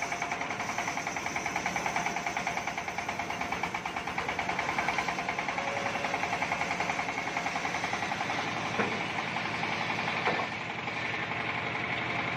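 Homemade engine-driven circular sawmill running and ripping a log lengthwise: a rapid regular engine pulse under a steady high blade whine. Two sharp knocks come near the end, and the sound drops a little after the second.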